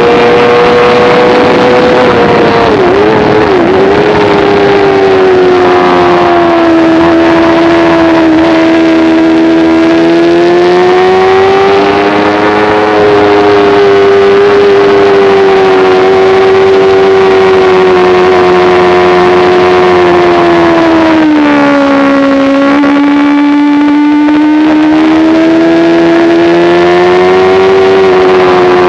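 Sport motorcycle engine running at high revs on track, loud and continuous. Its pitch sags and climbs slowly, with two brief quick dips about three to four seconds in and a lower stretch around three-quarters of the way through.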